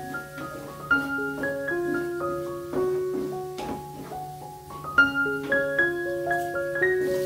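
Background piano music: a slow melody of separate held notes over soft lower notes.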